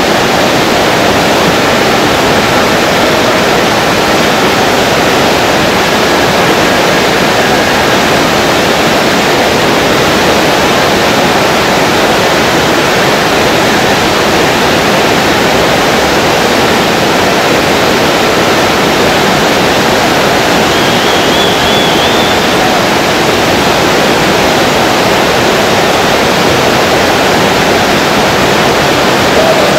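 Whitewater rapids rushing loudly and steadily, a continuous roar of churning river water.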